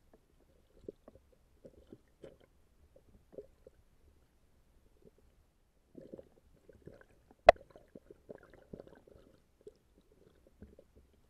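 Bream feeding, heard underwater through an action camera's housing: irregular, muffled soft pops and knocks over a low rumble, with one sharp click about seven and a half seconds in.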